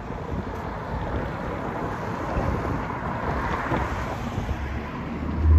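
Wind buffeting the microphone over a steady outdoor rumble, with a hiss that swells and fades about halfway through.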